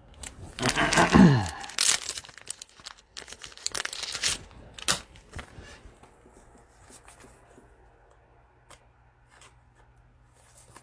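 Trading cards and packaging handled with nitrile-gloved hands: rustling, crinkling and light tearing with sharp clicks, busiest in the first few seconds, with a brief falling tone about a second in, then thinning to faint scattered rustles.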